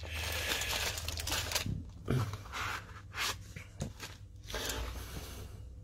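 Plastic wrapping and bubble wrap rustling and crinkling as packed items are handled. A continuous rustle in the first second and a half is followed by several short rustles and light knocks from plastic display boxes being picked up.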